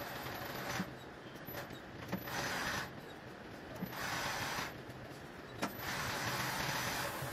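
Mattress tape edge sewing machine running: a steady motor hum under stitching noise that comes and goes in spurts of about a second, with a few sharp clicks.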